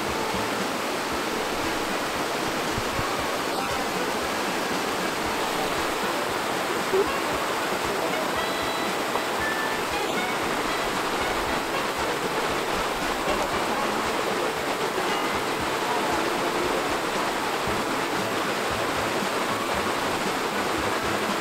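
Waterfall rushing steadily: falling water pouring into a plunge pool, an even, unbroken noise.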